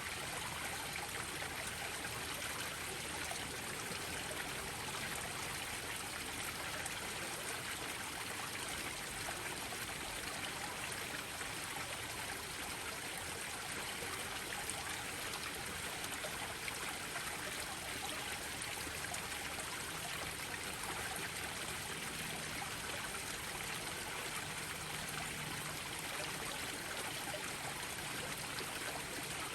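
Small waterfalls spilling into a garden koi pond, a steady trickling, splashing rush of water.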